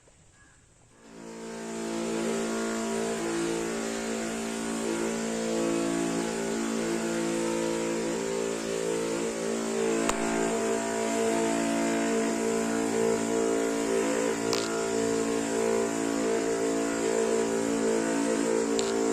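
A motor running steadily, starting up about a second in.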